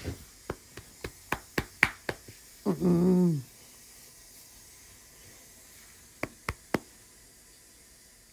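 A run of sharp clicks, then a short, low groan lasting under a second that drops in pitch at its end, then three more clicks.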